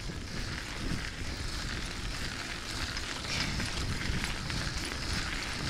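Bicycle rolling fast on a gravel trail: a steady low rumble of wind and tyres, with a constant crackle of gravel under the tyres.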